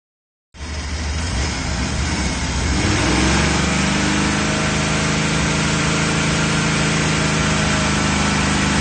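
1985 Chevy van engine idling steadily, its pitch rising slightly about three seconds in and then holding. It is running to bleed air out of the cooling system after a heater core replacement.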